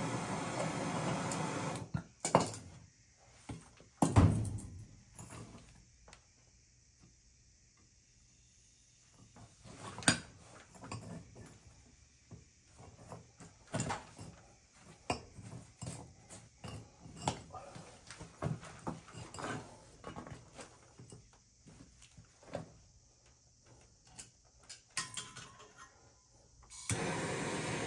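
Metal hand tools and fittings handled and set down: scattered clinks and knocks, with a loud knock about two seconds in and another about four seconds in. A steady hiss stops about two seconds in and starts again near the end.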